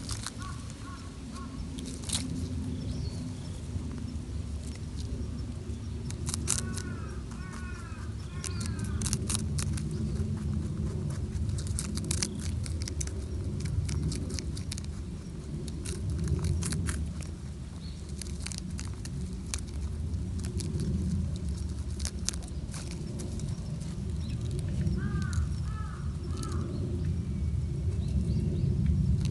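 European rabbits chewing komatsuna leaves and stalks close by: crisp crunching clicks in irregular quick clusters over a steady low rumble. A few short bird calls come about six seconds in and again near the end.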